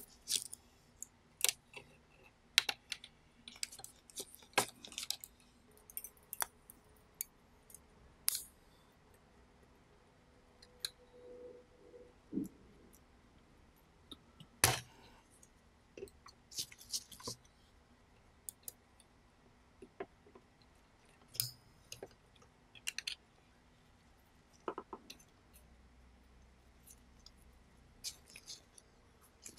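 Screwdriver and tweezers clicking and tapping on the small metal parts of a Panasonic RQ-2730 cassette deck mechanism: scattered sharp clicks and ticks at irregular intervals, with a brief squeak near the middle.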